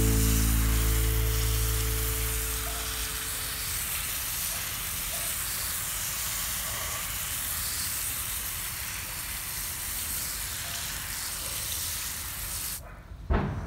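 A steady hiss under a few held music notes that fade out over the first few seconds. The hiss cuts off suddenly near the end, followed by a single sharp knock.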